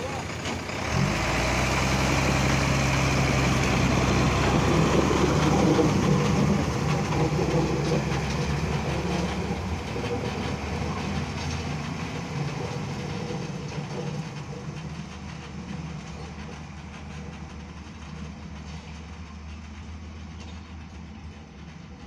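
Diesel engine of a ballast-laden tipper truck running on rail wheels: the engine note rises sharply about a second in as it moves off, holds steady, then fades as the truck travels away along the track.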